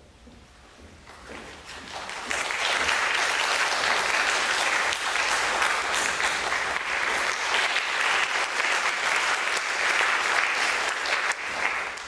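Audience applauding: it builds over about two seconds, holds steady, then dies away near the end.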